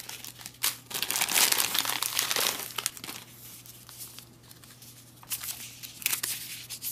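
Plastic bag and paper ration packets crinkling as they are handled and sorted. The crinkling is loudest and densest in the first few seconds, then falls to lighter, intermittent rustles with a few more crinkles near the end.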